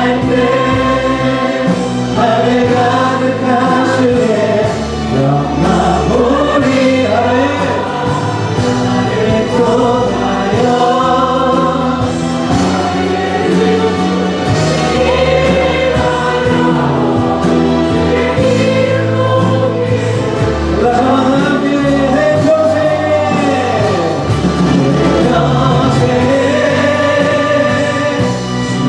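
Choir singing a Korean worship song to musical accompaniment, in steady sustained phrases.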